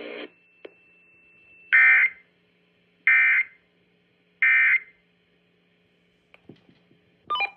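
Emergency Alert System end-of-message signal: three short, loud bursts of SAME digital data tones, each about a third of a second long and spaced about 1.3 seconds apart, marking the end of the alert broadcast. A faint click comes before the bursts, and another brief tone comes at the very end.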